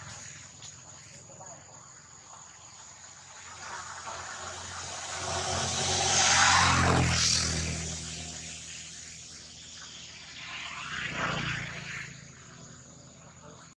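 A motor vehicle passes, its engine and road noise swelling to a peak about six to seven seconds in and then fading away. A second, fainter swell comes around eleven seconds.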